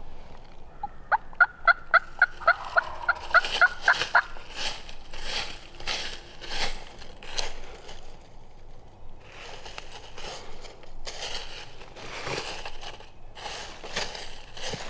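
A run of about a dozen short, evenly spaced turkey yelps over some three seconds. After them come repeated crunching and rustling, as in dry leaves or brush.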